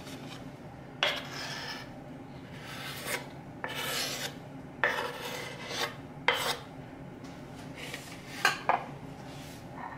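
A kitchen knife blade scraping across a wooden cutting board in a series of short scrapes, pushing diced kiwi off the board into a bowl.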